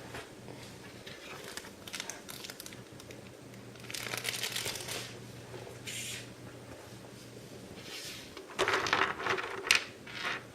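Plastic packaging crinkling and rustling in several short bursts as a boxed action figure is unpacked, the longest and loudest burst near the end, over a faint steady low hum.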